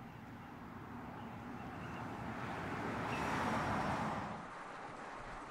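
BMW 535i GT's turbocharged straight-six and tyres swelling as the car approaches and drives past, loudest about three and a half seconds in, then dropping away abruptly.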